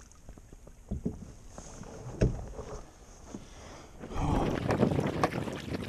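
Sit-on-top fishing kayak on the water: a couple of knocks on the hull, then from about four seconds in louder water splashing and sloshing around the boat, with some wind on the microphone.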